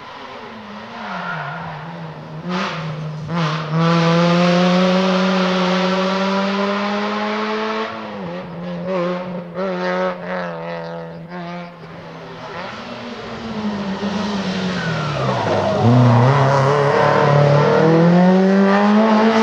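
Rally car engine at full throttle, revs climbing and dropping through the gears. About eight seconds in it goes choppy, with a quick string of cuts and catches as the driver lifts and shifts, then the revs dip and climb hard again near the end.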